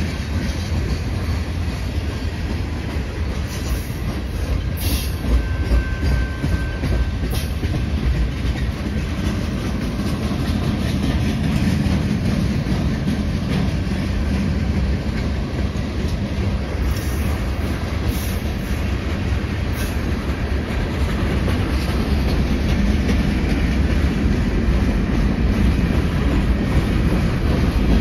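Freight train cars (tank cars, covered hoppers and gondolas) rolling past at close range: a steady rumble with the clickety-clack of steel wheels over the rail joints.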